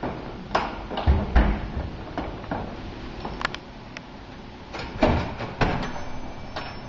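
Doors opening and shutting: heavy thumps about a second in as a door closes, then a glass entrance door's push bar clunking and the door swinging open about five seconds in, among lighter knocks.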